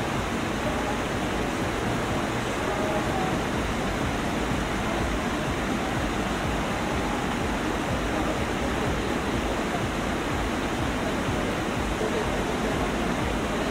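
Steady city-square ambience: an even wash of traffic and crowd noise with faint snatches of distant voices.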